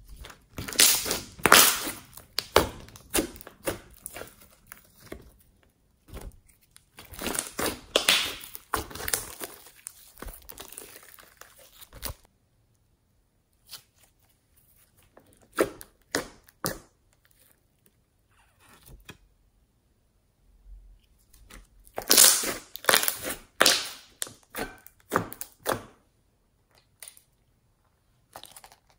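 White fluffy slime being pressed, stretched and folded, making crackling, popping squelches as air pockets burst. The sound comes in bursts of a few seconds, with pauses and a few lone pops between.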